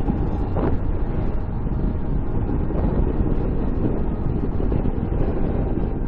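Wind buffeting the microphone: a steady, unbroken rumble, heaviest in the low end.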